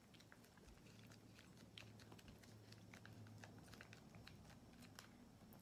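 A cat licking and chewing Churu lickable treat paste from its tube: faint, scattered small clicks and smacks over near silence.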